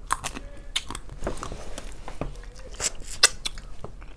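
Eating sounds from people eating a seafood boil of crab and shrimp by hand: a quick run of wet mouth smacks and chewing clicks, with crab meat being picked from the shell.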